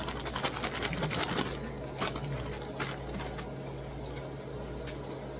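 Plastic bag of shredded red cabbage crinkling and crackling as it is handled close to the microphone. The crinkling is dense for about the first second and a half, then thins to a few scattered crackles.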